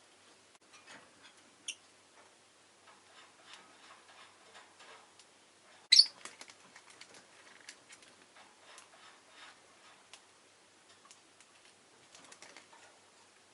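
Peach-faced lovebirds: faint scattered ticks and clicks throughout, with one short, sharp, high chirp about six seconds in and a fainter one near two seconds.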